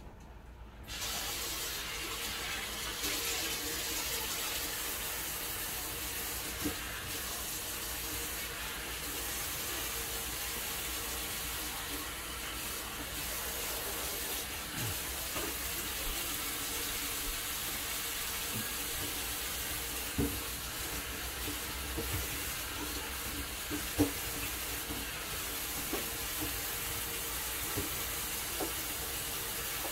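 Kitchen tap running steadily into the sink, turned on about a second in, with a few light knocks.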